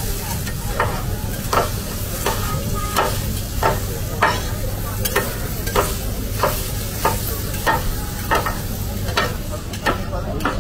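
Steel cleaver and metal scraper chopping roasted meat on a hot flat-top griddle: sharp, regular clanks of blade on steel about one and a half times a second, over a steady sizzle.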